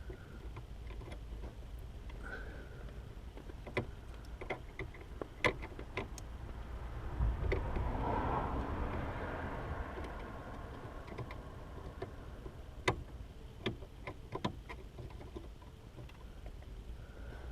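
Scattered small clicks and handling noises from hands fitting the wiring connector onto a car's brake light switch under the dashboard, over a low steady hum, with a broad rushing swell in the middle.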